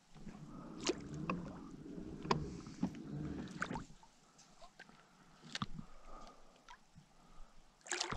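Water sloshing and gurgling against a plastic fishing kayak's hull as it moves, with scattered clicks from handling the rod and tackle. A sudden loud burst comes near the end.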